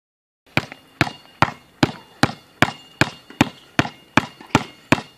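Basketball dribbled with one hand on a hard court: steady, evenly spaced bounces about two and a half a second, each a sharp slap with a short ring, starting about half a second in.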